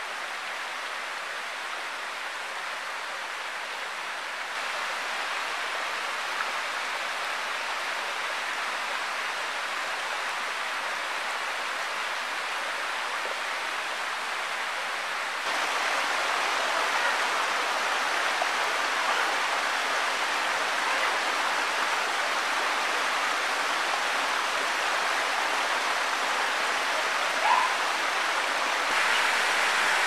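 Shallow stream and small waterfall running over rocks: a steady rush of water that grows louder in two steps, about 5 and 15 seconds in. A brief click comes near the end.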